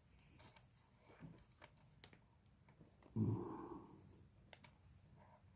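Faint scattered clicks and taps from handling a small metal padlock and tools. About three seconds in there is one louder, low sound lasting about a second.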